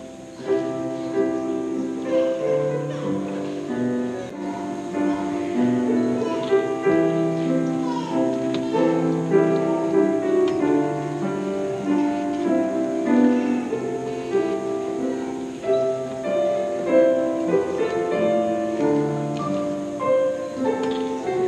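Choir singing a slow carol with piano accompaniment, the voices holding long notes that move step by step.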